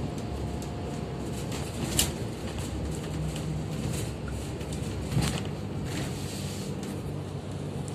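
Steady engine and road noise heard from inside a moving bus, with a low hum. Two sharp knocks or rattles, one about two seconds in and one about five seconds in.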